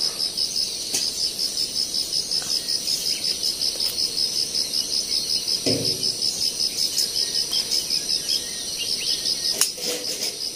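An insect, cricket-like, chirping in a rapid, even, high-pitched pulse without a break. About halfway through there is a short low sound.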